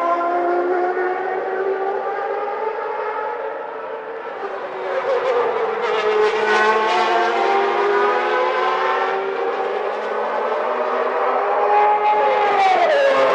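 1991 Formula One cars' high-revving, naturally aspirated 3.5-litre racing engines screaming at full song. The pitch rises and falls as the cars shift and pass, with several engines overlapping in the middle. Near the end one engine's pitch drops sharply.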